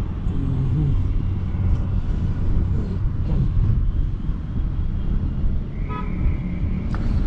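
Congested street traffic: engines running in a steady low rumble, with a short car horn honk about six seconds in.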